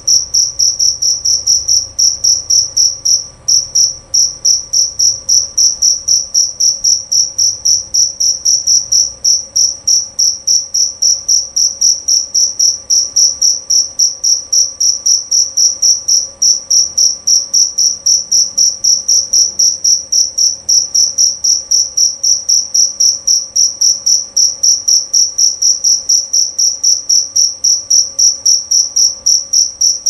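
A male jerabang field cricket chirping loud and clear, stridulating with raised forewings in a steady, even rhythm of high chirps, with one brief break a few seconds in.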